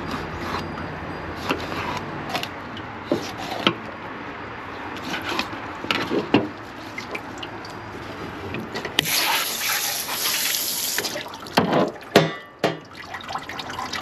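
Kitchen tap running into a sink for about two seconds near the middle, with scattered knocks and clatter of handling before and after it.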